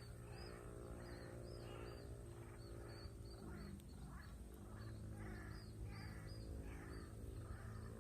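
Animal calls: a run of short, high chirps repeating about twice a second, with softer lower calls between them, over a steady low hum.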